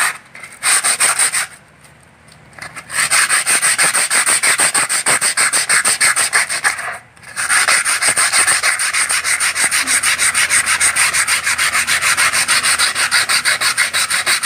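Coarse sandpaper rubbed by hand back and forth across a wooden cutting board in quick, even strokes, about four or five a second. There is a pause of about a second and a half around two seconds in and a brief break about halfway.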